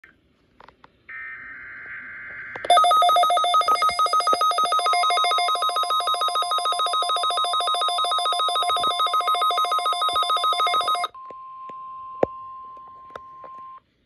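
Midland NOAA weather radio set off by a weekly test broadcast. About a second in comes a short burst of buzzy data tones. Then the radio's own alarm beeps loudly and rapidly for about eight seconds. A steady warning tone from the broadcast joins partway through and carries on alone for a few seconds after the beeping stops, with a click near the end.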